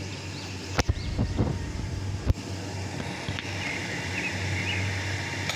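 Handling knocks and bumps as a phone is moved and set in place, a cluster about a second in and one sharp knock a little past two seconds, over a steady low hum.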